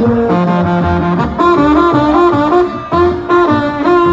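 Live band music: trumpets playing a melody together over an upright bass line, with no singing.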